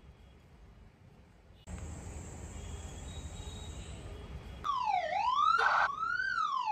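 Ambulance siren wailing, its pitch sweeping down and up about once a second, coming in about two-thirds of the way through over a faint steady background noise.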